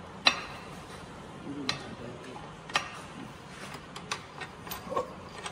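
About five sharp, irregular clicks or knocks over a low background rumble, the first about a third of a second in being the loudest.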